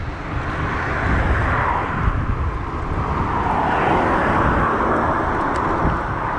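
A car passing close by, its tyre and engine noise swelling and then easing near the end, over low wind rumble on the microphone of a moving bicycle.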